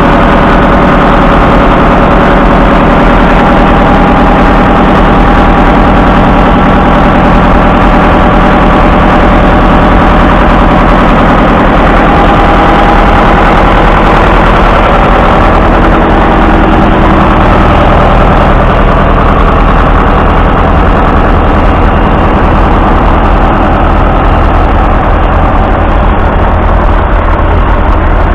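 Ford 5610's 4.2-litre four-cylinder diesel engine idling steadily, heard close up.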